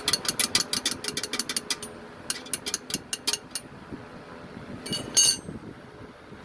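Hand ratchet wrench clicking in two quick runs of even clicks, about seven a second, with a short pause between. Near the end comes a sharp metal clink that rings briefly.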